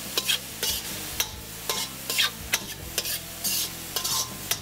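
Vegetables sizzling in a wok while a metal spoon stirs them, scraping and clicking against the pan every half second or so.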